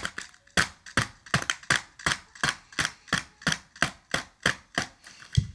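A screwdriver jabbed again and again into a small cardboard toy box, with about three sharp hits a second and a duller thump near the end.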